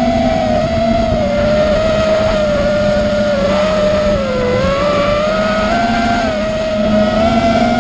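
FPV racing quadcopter's brushless motors and propellers whining, heard close from the onboard camera, the pitch wavering up and down with throttle and dipping about halfway through.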